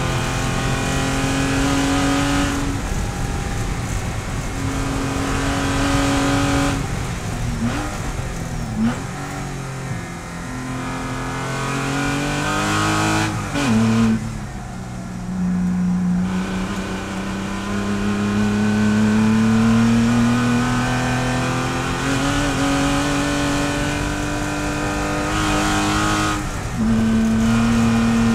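Porsche race car engine heard from inside the cockpit, running hard at full throttle and shifting up through the gears. It is braking with throttle-blipped downshifts around eight to fourteen seconds in, then pulling through a long rising climb in pitch with an upshift near the end.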